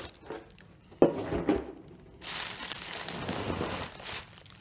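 A plastic cool box lid knocks and clatters sharply twice as it is lifted off. From about two seconds in, plastic bags crinkle and rustle as a wrapped peat sample core tube is pushed down among them.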